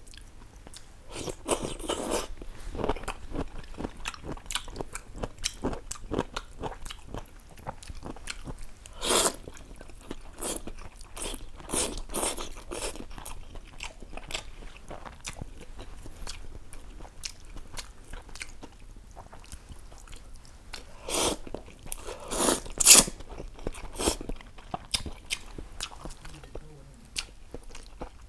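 Close-miked eating of ramen noodles with chopsticks: wet chewing and noodle slurping, with a few louder slurps around 9 seconds in and again around 21 to 23 seconds in.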